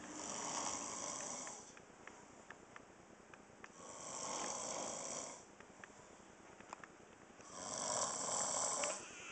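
A man snoring in his sleep with his mouth open: three long snores, one about every four seconds.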